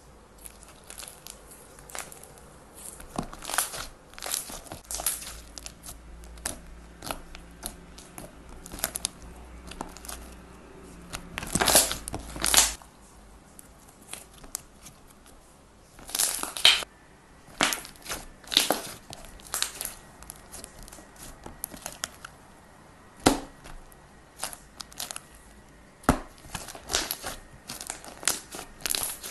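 Crunchy slime being pressed and squeezed, giving irregular crackles and crunches, with louder clusters of crackling a third and halfway through.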